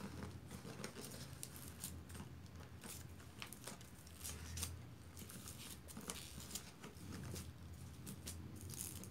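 Faint, irregular crackles and crinkles of slime mixed with styrofoam bits being pressed and worked down into a paper cup, over a low steady hum.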